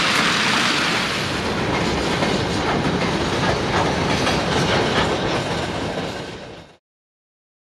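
Freight train of open gondola wagons rolling past, its wheels clacking over the rail joints in a steady run of noise that cuts off abruptly near the end.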